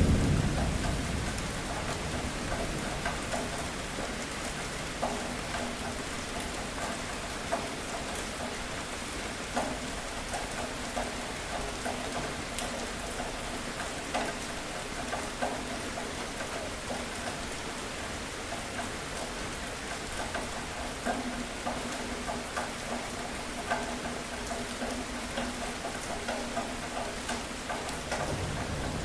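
Steady rain falling on a surface, with scattered individual drops, and a rumble of thunder dying away at the start and another building near the end.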